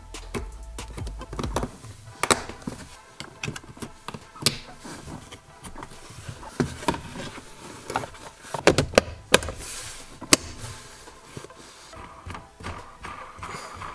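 Plastic centre-console trim of a car being fitted by hand: a run of irregular clicks, taps and knocks as panels and clips are pressed and snapped into place, loudest in a cluster a little past the middle.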